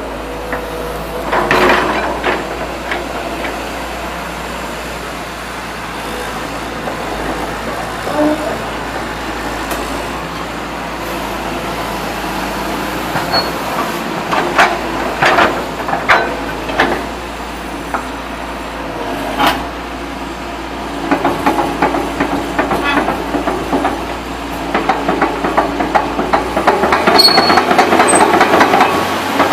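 Komatsu PC200-8 excavator running, its six-cylinder diesel steady under scattered sharp metal clanks. A fast rattling clatter builds about two-thirds of the way through and is loudest near the end.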